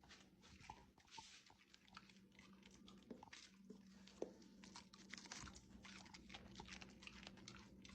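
Senior dog chewing a piece of seaweed, with faint repeated crisp crunches and bites throughout. A faint steady hum runs underneath.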